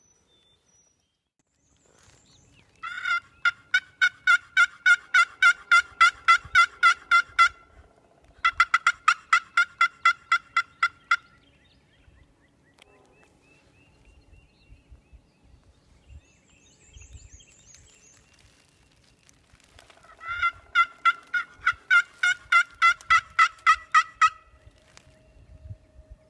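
Wooden turkey box call worked by hand, sending out rapid, evenly spaced yelps imitating a hen turkey to draw a gobbler. There are three long runs of about four or five notes a second, the first two close together and the third after a pause of several seconds.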